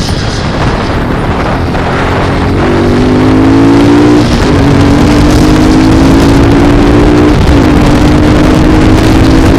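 Yamaha FZ motorcycle engine with a K&N air filter, accelerating under load: its pitch climbs steadily, then drops sharply at two gear changes and climbs again.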